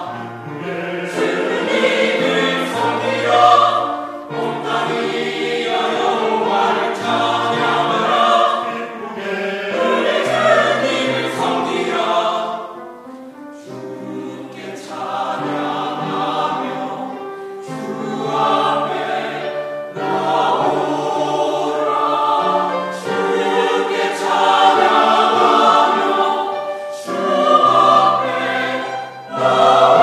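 Mixed church choir of men's and women's voices singing a sacred anthem in sustained phrases, with a brief drop between phrases about thirteen seconds in.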